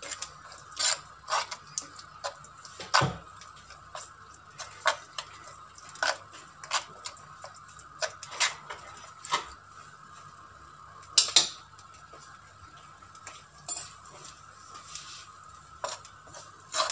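A spoon scraping and knocking against a clay tajine as a thick sauce is stirred: irregular clinks and scrapes, about one or two a second, over a faint steady hum.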